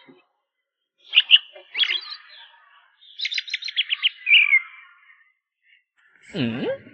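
Looped comedic sound-effect track: high bird chirps and a quick warbling trill, then near the end a deep sliding cartoon-style tone that dips and rises.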